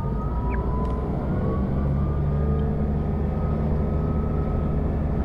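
Diesel railcar heard from inside the cabin as it pulls away from a station: a steady low engine drone that strengthens about two seconds in, with a faint higher whine above it.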